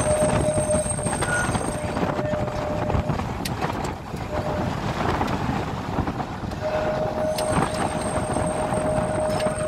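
Open-top Blackpool boat tram running on its rails: a steady rumble from the wheels and running gear. A steady whine is there at first, fades away in the middle and returns about seven seconds in.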